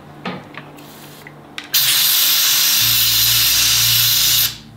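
Compressed-air blow gun firing a loud, steady hiss for about three seconds, blowing dirt out around the shift shaft on the engine case, then cutting off. A few light clicks come before it, and a low hum joins partway through the blast.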